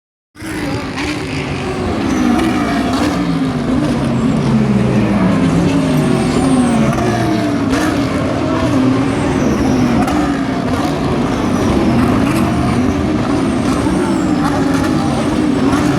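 Several GT race cars running at once: overlapping engine notes rise and fall as they rev and change gear, loud and continuous.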